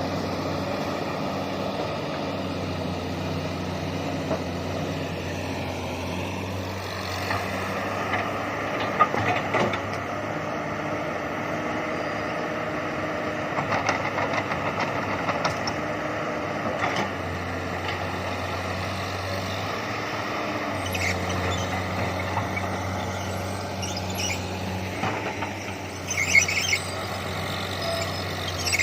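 Komatsu PC200 hydraulic excavator's diesel engine running steadily, with metallic squeals and clanks from the machine working coming in a few short spells, the loudest near the end.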